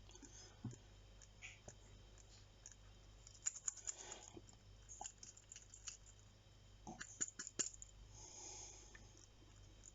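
Faint clicks and light taps of a mechanical wristwatch being handled, in two small clusters, one about halfway through and one later on.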